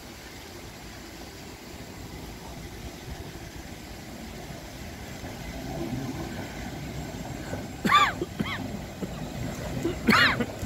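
Grenoble TAG tram approaching along curved track, its running rumble growing louder from about halfway through. Near the end come short, loud, high-pitched squeals: two about eight seconds in and two more just before the end.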